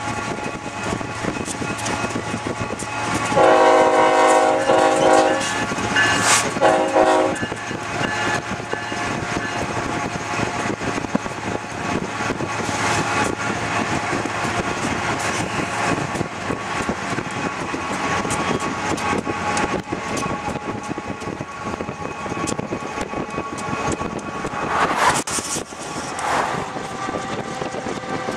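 Union Pacific freight train passing behind several diesel locomotives, with a steady rumble and wheels clicking over the rail. The locomotive horn sounds a long chord-like blast about three seconds in and a shorter one a couple of seconds later.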